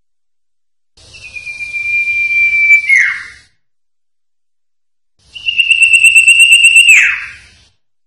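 Common iora (cipoh) singing: two long whistled notes, each held on one pitch for a second or two and then dropping sharply at the end, the second a little higher than the first.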